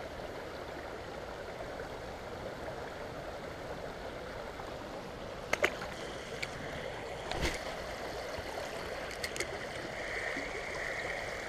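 Creek water running over a shallow rocky riffle, a steady rush of water. A few light clicks fall around the middle, with a dull knock about seven and a half seconds in.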